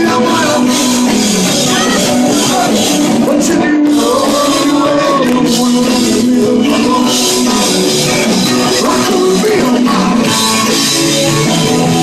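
Live rock and roll band playing loud and steady, with acoustic guitar and singing at the microphones.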